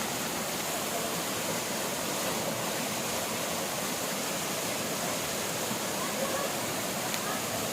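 Steady rush of water falling and flowing at a waterfall on a river, unbroken throughout.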